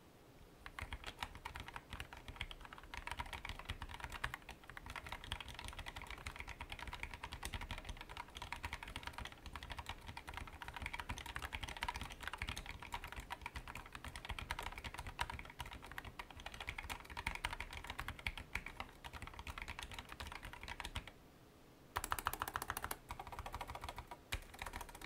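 Typing on an RK925 folding mechanical keyboard with RK low-profile red (linear) switches and thin ABS keycaps: a steady stream of light keystroke clicks. The keys with stabilizers give a slight metallic sound. After a brief pause near the end comes a quick run of presses on keys at the right side.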